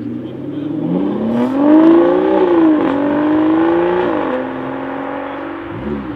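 Aston Martin Vanquish V12 accelerating hard away. The engine note climbs, drops with an upshift about three seconds in, and climbs again. It then drops with a second upshift and holds steady, fading as the car pulls away.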